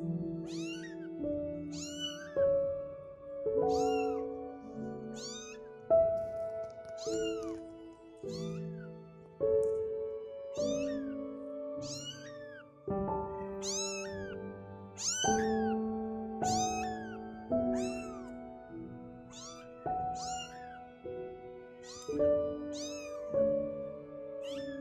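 Two-week-old kitten meowing over and over, about once a second: thin, high cries that each rise and then fall in pitch. Background music with held notes plays under them.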